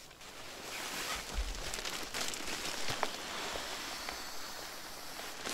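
Nylon tent fabric and a sleeping mat and its bag rustling and crinkling as they are handled and pushed into the tent, with small clicks and a soft thump about a second and a half in.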